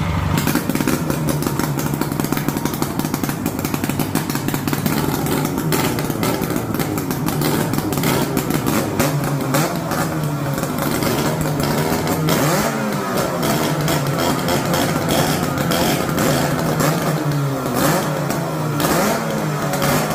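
Two-stroke speed boat petrol engine running on the bench just after starting, uneven and clattery, then revved up and down repeatedly from about twelve seconds in.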